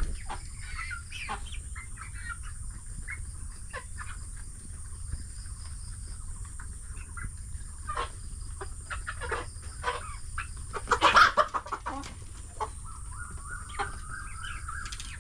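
Local chickens clucking as they feed, with short scattered calls and a louder flurry of clucks about eleven seconds in, followed by one drawn-out higher call.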